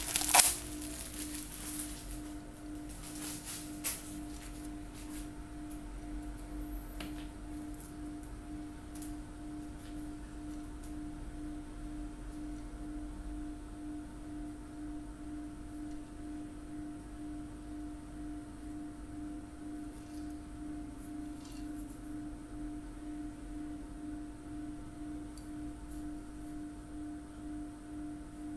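A steady, gently pulsing low hum with a fainter higher tone above it. In the first few seconds there are some short crinkles and clicks as bubble wrap is pulled off a plastic-capped spray can.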